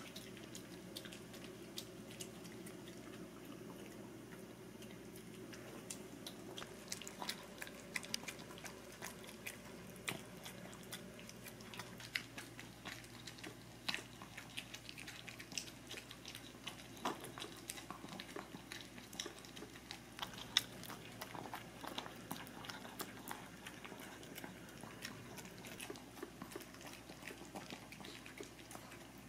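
Maltese dogs eating a soft homemade fish-cake mash from bowls. Faint, irregular chewing and small clicks, busier from about six seconds in.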